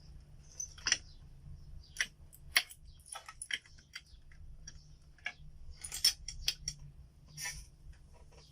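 Irregular light clicks and small metallic clatter of computer parts and tools being handled on a workbench, over a faint steady low hum.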